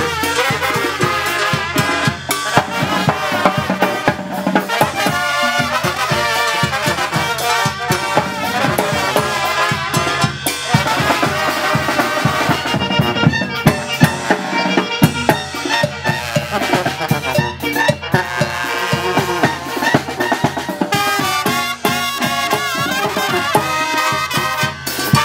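Live Mexican-style brass band playing an instrumental passage: a tuba and a brass section over timbales, congas and cymbals, with a steady beat.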